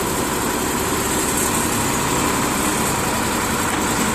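Sonalika farm tractor's diesel engine running steadily while it hauls a rear scraper box through loose soil.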